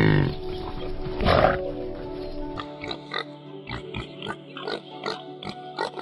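A water buffalo calls twice, a loud falling call then a second shorter one, followed by piglets grunting and squealing in a run of short calls, about two or three a second. Steady background music plays underneath.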